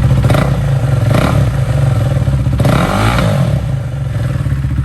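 Husqvarna Vitpilen 401's single-cylinder four-stroke engine idling with its muffler removed, exhausting straight out of the header chamber. The throttle is blipped three times, briefly about half a second and a second in, then a bigger rev around three seconds in that falls back to idle.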